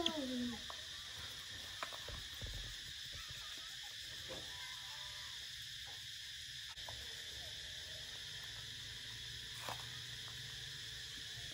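A baby monkey's short call falling in pitch right at the start. After it comes a steady high drone of insects with a few faint clicks.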